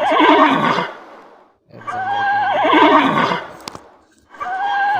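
Horse neighing, the same whinny repeated three times about two and a half seconds apart. Each is a held high call that breaks into a shaky, falling whinny.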